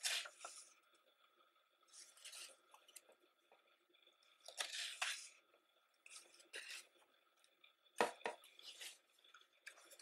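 Pages of a thick hardcover photo book being turned by hand: a soft paper swish and rustle roughly every two seconds, with a sharper tap about eight seconds in.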